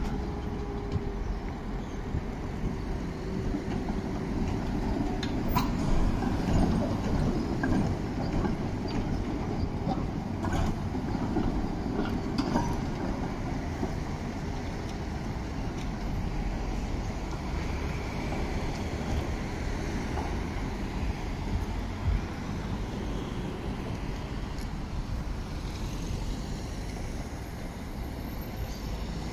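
Konstal 105Na tram running across street track at a junction, with a low hum at the start and several sharp clacks as its wheels pass over rail joints and points, over a steady running rumble. Road traffic is heard near the end.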